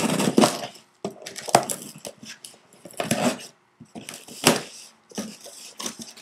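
Packing tape on a cardboard shipping box being slit with a car key and the flaps pulled open: irregular scraping and tearing bursts, with a couple of sharp knocks.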